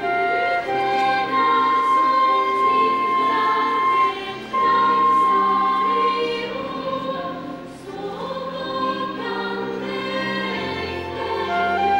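Lucia choir singing in a large stone church, with a flute holding long high notes above the voices; the singing eases briefly twice between phrases.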